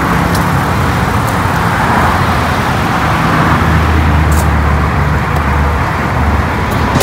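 Steady motor-vehicle traffic noise, a continuous rush with a low engine hum that swells in the middle, and a few faint clicks.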